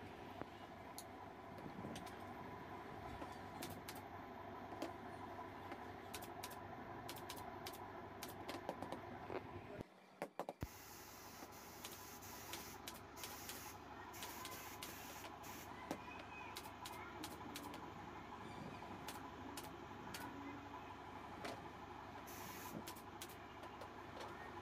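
Pneumatic upholstery staple gun firing staples one at a time, short sharp clicks at irregular intervals, as fabric is fastened to a plywood board. A steady low hum lies underneath, and the sound briefly drops out a little before the middle.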